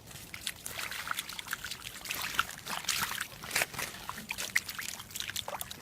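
Water trickling and splashing in many small, irregular splashes.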